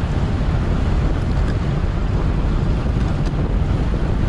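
Steady wind rumble on the microphone of a racing cyclist's camera while riding at speed, with a faint click about three seconds in.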